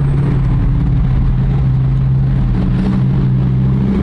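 A car being driven, its engine giving a steady low drone with road noise.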